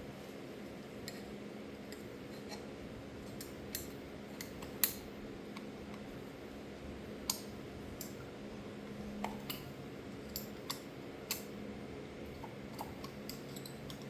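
Scattered small metal clicks and taps of distributor parts being handled and fitted: a points plate and its small screws going into a Delco distributor.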